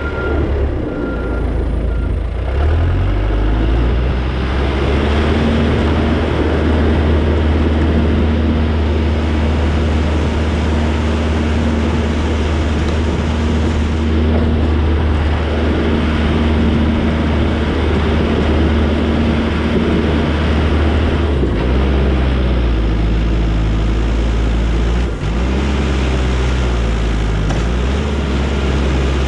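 Diesel engine of a compact snow-clearing machine working. It revs up about two seconds in and holds high revs, with brief dips and recoveries in engine speed around 21 and 25 seconds as it takes load.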